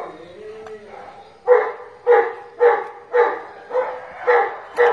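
A dog barking in a steady run, about seven barks roughly half a second apart, starting about a second and a half in. Before them there is a brief, quieter whine that rises and falls.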